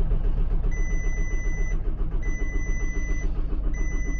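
A VW engine being cranked by its starter in a fast, even rhythm without catching: the engine will not start. Three long electronic beeps sound over the cranking.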